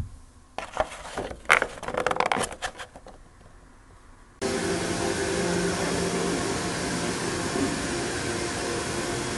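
A few sharp knocks and clatters of an empty bento box being handled and lifted off a table. About four seconds in, a steady hiss with a low hum starts abruptly: the background noise around a station's bento vending machine.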